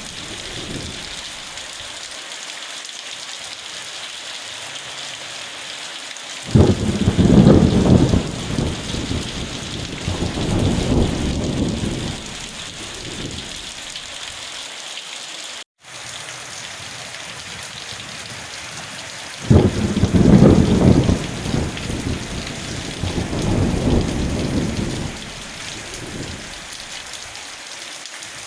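Steady rain falling, with two long rolls of thunder, the first starting about six seconds in and the second a little past the middle, each rumbling for several seconds. The sound cuts out for an instant near the middle.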